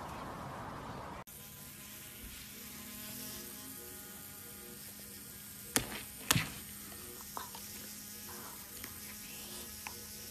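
Electric toothbrush buzzing steadily as it brushes a golden retriever puppy's teeth, starting about a second in, with two sharp clicks near the middle.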